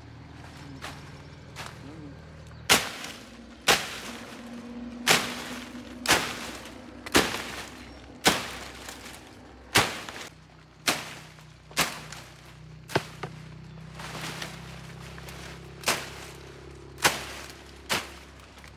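A hand tool chopping down into brush and soil in repeated sharp strikes, about one a second, starting about three seconds in.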